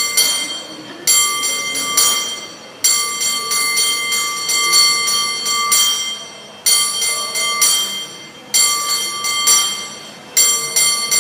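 Cable car bell rung by hand in a rhythmic pattern: quick runs of clanging strikes, each ringing on with a clear high tone, in phrases broken by short pauses.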